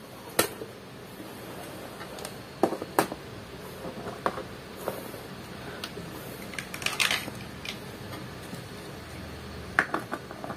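Hard plastic toy castle pieces clicking and clattering as they are handled and fitted together: scattered light knocks, with a small flurry around the middle and another near the end.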